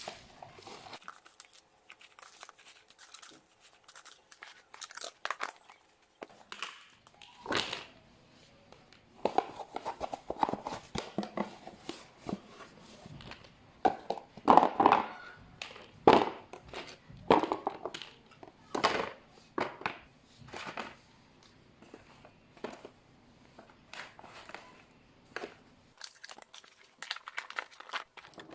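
Plastic bags and food packaging crinkling and rustling as they are handled, with scattered light clicks and knocks, busiest in the middle.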